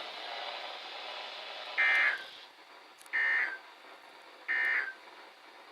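NOAA Weather Radio SAME end-of-message code: three short, evenly spaced bursts of digital data tone, about a second and a half apart, following a couple of seconds of radio hiss. The bursts mark the end of the flash flood warning broadcast.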